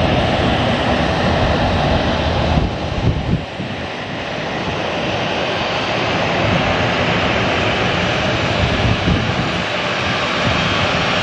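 A Boeing 737-900ER's twin CFM56-7B turbofan engines running at taxi power as the airliner taxis in: a steady jet rush, dipping briefly about three seconds in.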